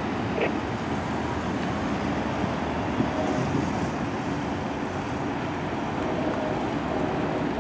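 Railcars rolling past on the track: a steady rumble and rush of wheels on rail with no breaks.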